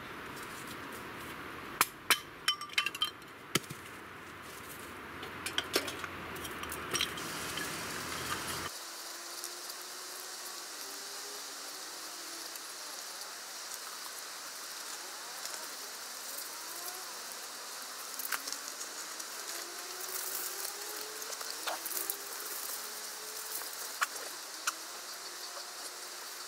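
A knife splitting thin wooden kindling sticks, giving a cluster of sharp cracks and knocks about two to three and a half seconds in and a few more around six seconds. After that comes the faint, steady scrape of a knife shaving curls off a stick to make fire-lighting tinder, with occasional small clicks.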